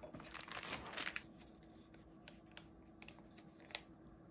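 Small plastic containers and their caps being handled on a table: a rustle of plastic packaging for about the first second, then a few light, separate clicks and taps of plastic.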